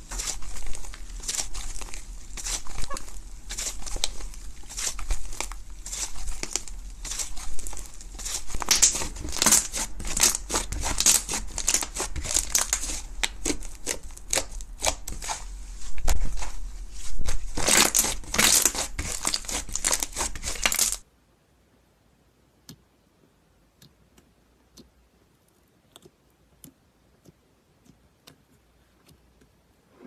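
Thick white slime being pressed, stretched and pulled apart by hand, making dense sticky crackles and small pops. About two-thirds of the way through the sound cuts off suddenly, leaving only faint, scattered clicks.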